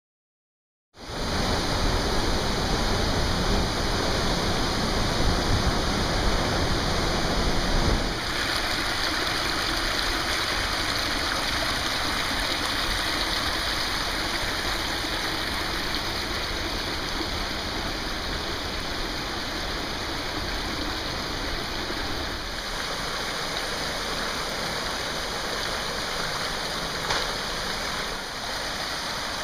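Warren Creek rushing and splashing over mossy rocks in small cascades: a steady water noise that starts about a second in.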